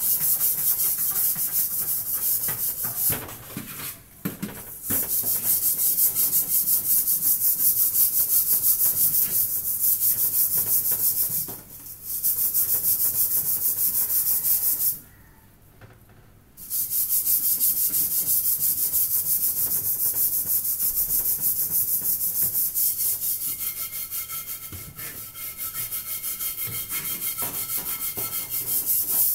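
Fast back-and-forth scrubbing on the outside of a blackened metal cooking pot, worked by hand with a paste of vinegar, toothpaste, flour and baking soda to scour off the burnt-on black. The strokes make a dense hiss that stops briefly about four and twelve seconds in, and for over a second near the middle.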